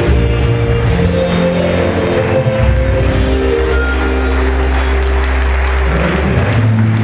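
Music with long held notes over a deep bass, with a crowd clapping underneath.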